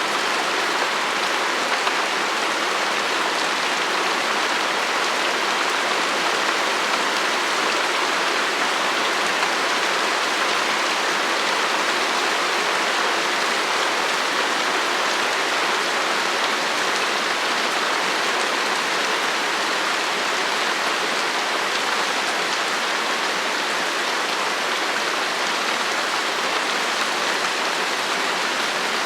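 Light rain falling steadily: an even hiss with no single drops standing out.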